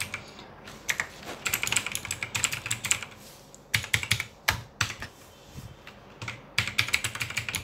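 Computer keyboard being typed on: rapid key clicks in three quick runs with short pauses between them.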